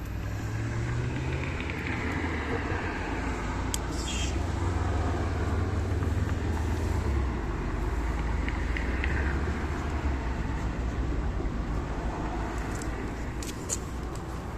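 Motor vehicle engine running with a steady low rumble, with a few faint clicks partway through.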